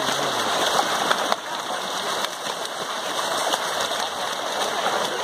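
A packed shoal of catfish thrashing and splashing at the surface as they feed on gathiya thrown into the water. The result is a steady, dense churning splash made up of many small slaps.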